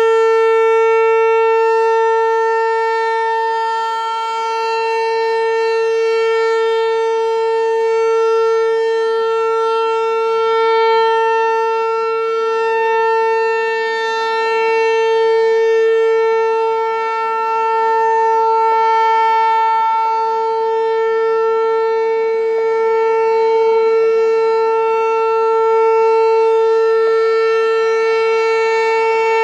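American Signal T-128 rotating outdoor warning siren sounding its steady alert signal for a tornado drill: one held pitch that swells and fades about every five seconds as the turning horn sweeps past.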